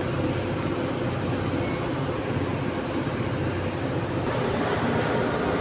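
Steady drone of heavy power-plant machinery running, an even noise with a low hum in it.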